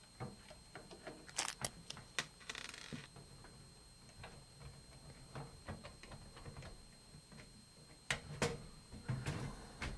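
Scattered light clicks and taps of hands working a computer case's top panel loose and lifting it, with a brief scrape about two and a half seconds in and a cluster of louder clicks near the end.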